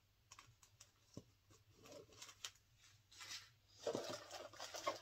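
Scattered light clicks and taps of small items being handled, then a small plastic baggie rustling and crinkling from about three seconds in, growing louder near the end.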